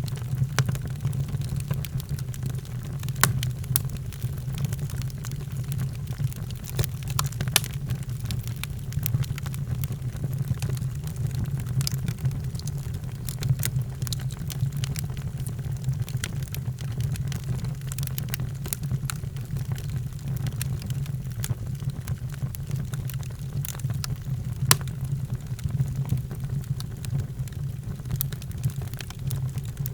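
Wood fire crackling in a fireplace: scattered sharp pops and snaps over a steady low rumble of burning, with a few louder pops.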